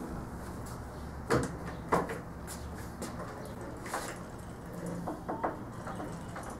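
Two sharp knocks about half a second apart, a little over a second in, then a few lighter clacks later on, over a low steady hum.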